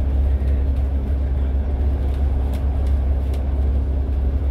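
Inside a bus cruising on a highway: a steady low engine drone and road rumble, with a few light clicks and rattles.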